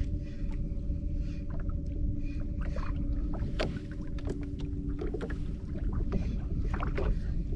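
Electric bow-mount trolling motor running with a steady hum of several tones, which stops about five seconds in, over a low rumble of wind and water, with a few light clicks and taps.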